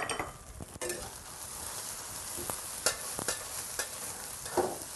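Diced carrot, tofu skin and bean curd sizzling in hot oil as they are stir-fried in a stainless steel wok. A metal spatula clinks and scrapes against the wok a few times.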